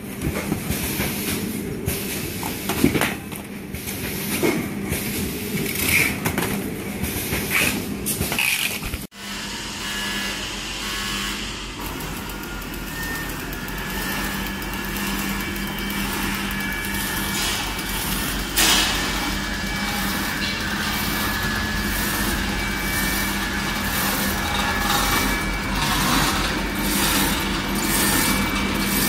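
Automatic shrink-wrapping machinery. For the first stretch, plastic cups clatter and knock as they are handled at the film-wrapping section. After a sudden cut, the machines run with a steady hum and faint, regular ticking.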